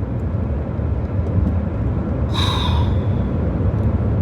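Steady low rumble, with one brief higher-pitched sound about two and a half seconds in.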